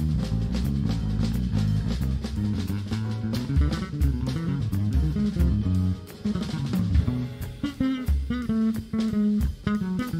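Live instrumental jazz: an electric bass guitar plays a busy line of quickly changing notes, with a drum kit and cymbals, and higher notes join in the second half.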